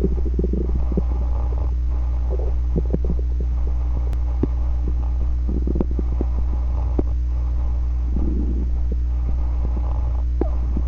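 Stomach growling: irregular gurgling rumbles that come and go, with the busiest stretch near the start and another burst around eight seconds in, over a steady low hum and a few small clicks.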